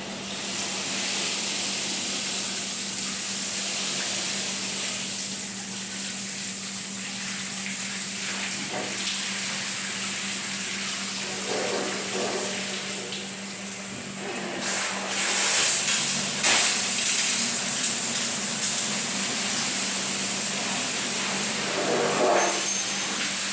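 Water running steadily with a hiss over a steady low hum, with louder surges of splashing around the middle and again near the end.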